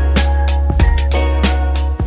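Background music with a steady drum beat over sustained bass and held notes.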